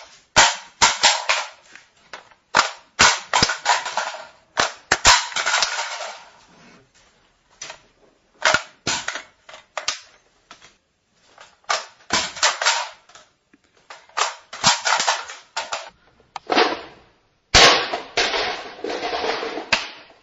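Metal clicks and clatter of a Type 95 (QBZ-95) bullpup rifle being handled as its magazine is pulled out and seated, in repeated bunches with rattling and rustling between them; the longest and loudest bunch comes near the end.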